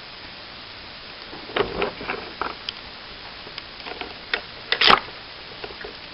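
Small clicks and taps of fingers handling a slot car's plastic parts and wire connectors while plugging the chip's wires back in. The clicks come in two clusters, the sharpest just before the end, over a steady faint hiss.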